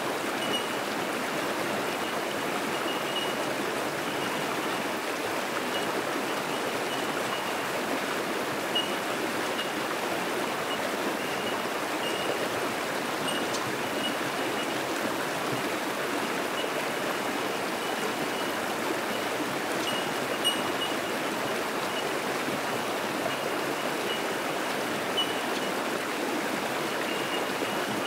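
Creek water rushing steadily over rocks in shallow rapids, with the short, high, repeated 'tink' notes of bell miners (bellbirds) ringing throughout.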